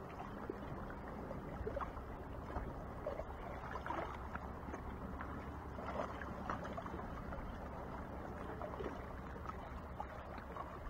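Calm sea water lapping and gurgling against shoreline rocks: a steady watery wash with scattered small splashes.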